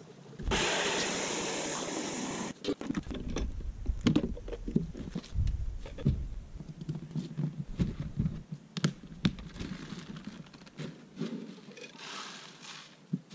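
Garden hose water rushing into a plastic chicken waterer for about two seconds, starting and stopping abruptly. Then scattered knocks and clunks of plastic containers being handled, and a softer pouring hiss near the end.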